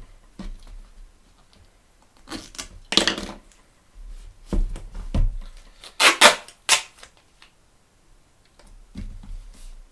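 Gaffer tape being worked around a book's spine: several short, loud rips as lengths are pulled off the roll, with crinkly handling in between; the loudest cluster comes about six seconds in.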